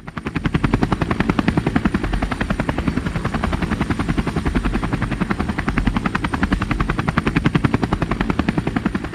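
Light helicopter hovering just above the ground, its main rotor beating in a fast, steady chop that starts abruptly.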